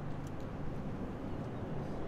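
Steady low rumble and hum of motor traffic on the road alongside.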